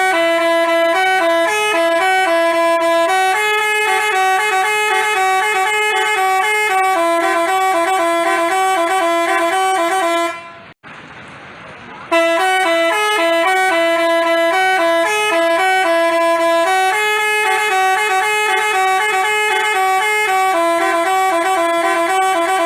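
Telolet basuri multi-tone horn playing a quick melody of bright, stepping horn notes. It breaks off for about a second and a half some eleven seconds in, then plays the same tune again.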